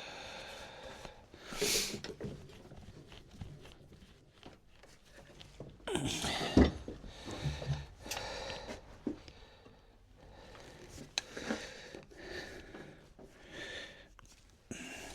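Hand-tool work on wood: irregular scraping or rasping strokes and light knocks, with one louder knock and a dull thud about six and a half seconds in.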